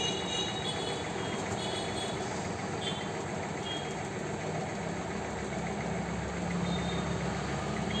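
Steady road traffic noise from heavy nearby traffic, with an engine rumble growing a little louder near the end.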